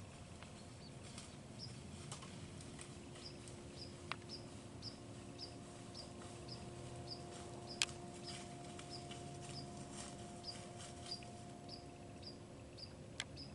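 Quiet woodland ambience: a short, high chirp repeats evenly about twice a second, with scattered sharp clicks and snaps, the loudest about eight seconds in. A faint steady hum sits underneath from about a second and a half in until near the end.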